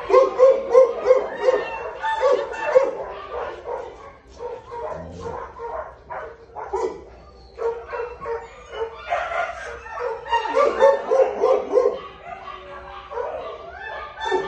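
Dog barking and yipping in quick runs of short calls, several a second, in the first three seconds and again from about nine to twelve seconds in.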